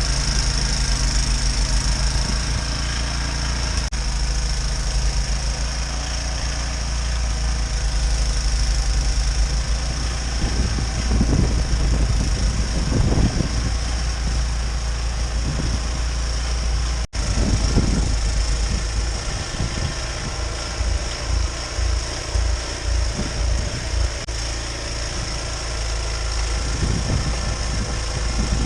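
An engine running steadily with a low, pulsing rumble, briefly cut off partway through.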